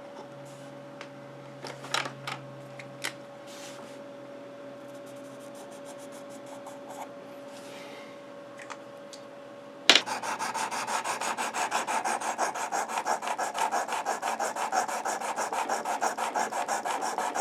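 A few light clicks and knocks as the knife is handled in the sharpener's clamp. About ten seconds in, a 400-grit sharpening stone starts rasping back and forth along the edge of a Leatherman Free T4 blade in quick, even strokes, reprofiling the factory edge.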